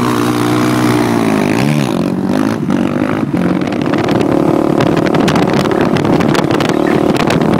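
Sport quad (ATV) engine revving up and down. A few seconds in, the sound changes to quad engines running steadily at road speed, with wind buffeting the microphone.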